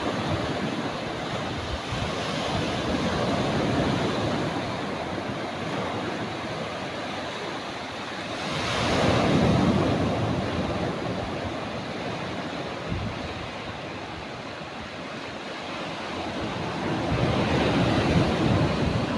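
Sea surf: small waves breaking and washing up a sandy beach in a steady rush, growing louder about halfway through and again near the end as waves break.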